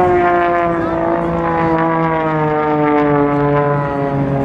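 Single-engine aerobatic propeller plane in flight: its engine and propeller make a steady pitched drone whose tone sinks slowly throughout.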